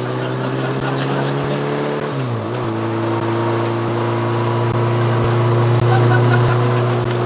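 Motorbike engine running at a steady, even pitch. About two seconds in the pitch briefly sags and wobbles, then settles back to a steady run.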